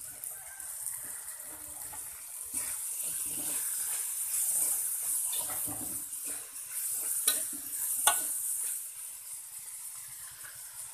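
Teak caterpillar pupae stir-frying in a metal wok: a steady sizzle, with a metal spatula scraping and knocking against the pan, the sharpest knocks about seven and eight seconds in.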